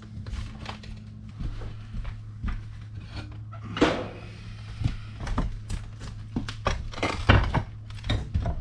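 Irregular metal knocks and clanks as a wood-stove firebox and its parts are handled and fitted, with a steady low hum underneath.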